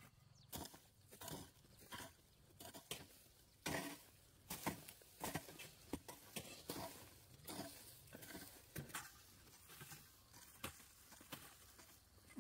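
A series of irregular sharp taps and knocks, roughly one or two a second, the loudest about four seconds in.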